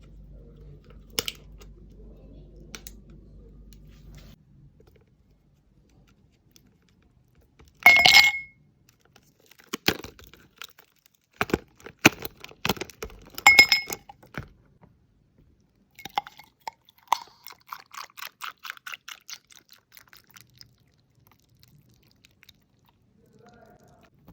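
Hard plastic reusable ice cubes clinking and rattling against one another and their container as they are handled. The loudest clinks come about eight and fourteen seconds in, and a quick run of small ticks follows near seventeen seconds. A low hum stops about four seconds in.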